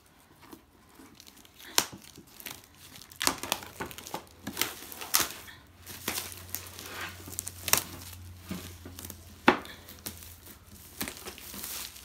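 Clear plastic bag crinkling and rustling as the box inside is worked out of it, with irregular crackles and a few sharper snaps.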